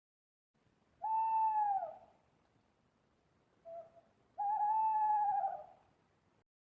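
Owl hooting: two long hoots, each about a second long, with a short faint note between them. Each hoot drops in pitch at its end.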